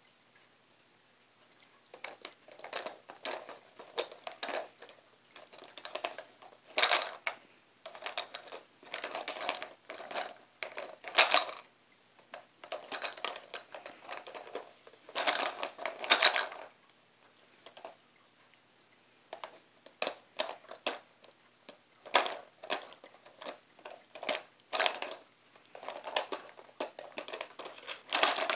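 Dog nosing and pawing at a hard plastic treat puzzle: irregular bouts of clattering and rattling as its plastic pieces knock and shift, starting about two seconds in.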